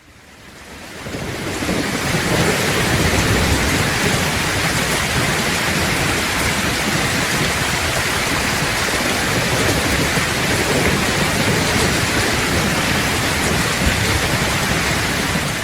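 Heavy rain falling steadily with a low rumble of thunder underneath, fading in over the first couple of seconds.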